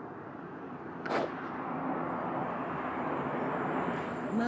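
Outdoor ambience: a steady rushing noise that slowly grows louder, with one sharp knock about a second in. A held musical note comes in just at the end.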